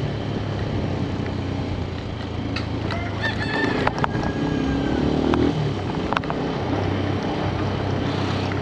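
Motorcycle engine running steadily, with a drawn-out animal call from about three to five seconds in and a few sharp clicks.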